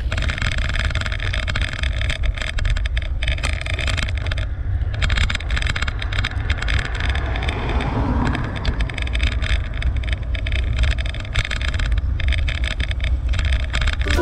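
Steady wind rumble on the microphone with road noise while riding a bicycle, swelling briefly about halfway through.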